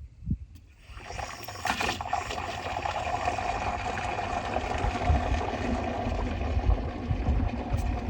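Coolant being drawn from a gallon jug into a vacuum-emptied engine cooling system through an Airlift vacuum refill tool: a steady rushing hiss of liquid and air that starts about a second in.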